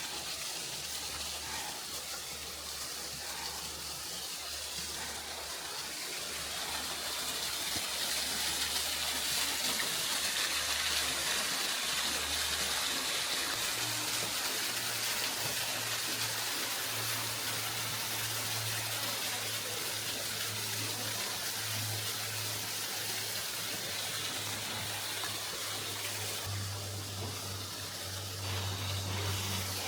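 Steady rush of flowing water, an even hiss that goes on without a break.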